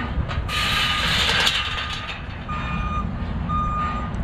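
A vehicle's reversing alarm sounding evenly spaced beeps of one steady high tone, over a constant low traffic rumble, with a burst of hissing noise in the first couple of seconds.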